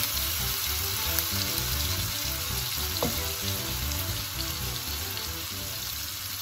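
Diced chicken, onion and green peppers frying in a hot nonstick wok, a steady sizzle, stirred with a wooden spatula that taps the pan a couple of times.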